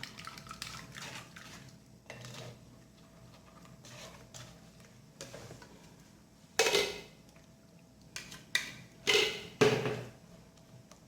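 Kitchen utensils clinking and knocking against a bowl as blended lemon juice is strained through a sieve, with a few sharper knocks in the second half.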